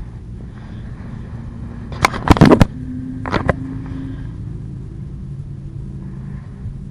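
Strong wind buffeting an action camera's microphone, a steady low rumble. About two seconds in comes a cluster of loud clatters from something handled right by the microphone, and a smaller one a second later.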